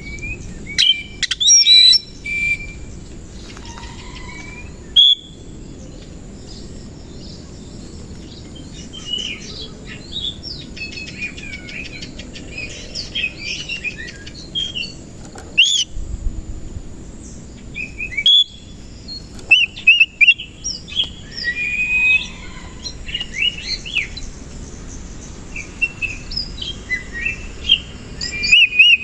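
Oriental magpie-robin (kacer) singing a long, varied song of rapid whistles, chirps and sharp calls, with loud notes standing out in short clusters near the start and again about two-thirds of the way through.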